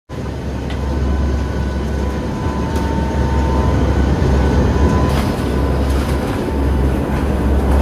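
Hurricane-force wind blowing hard and steadily, with heavy low buffeting on the microphone and no letup.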